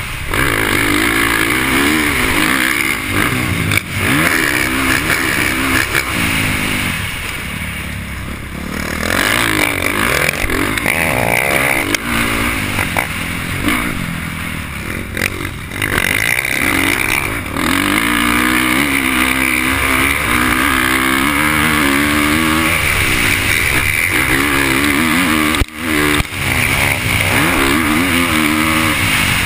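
Motocross dirt bike engine heard from the rider's helmet, revving hard and falling off again and again as it accelerates out of corners and shifts along the track.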